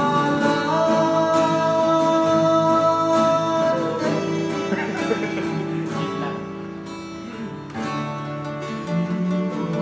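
A singer sings a slow song over acoustic guitar, holding one long note for about three seconds, then easing into a softer passage before coming back fuller near the end. The singer has a cough and cold.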